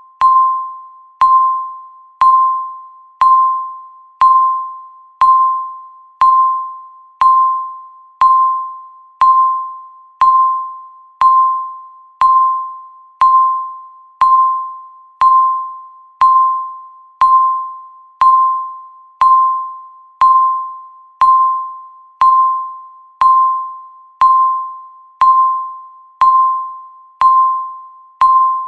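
Countdown timer's electronic beep, one short single-pitched tone once a second, each starting sharply and fading away, marking off each second of the countdown.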